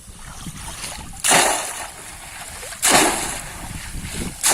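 Splashing in shallow muddy water as a bamboo polo cone trap is plunged down, three splashes about a second and a half apart.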